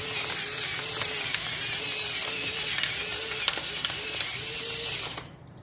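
Stainless-steel pepper mill grinding black peppercorns over fish fillets, a steady grinding that stops about five seconds in.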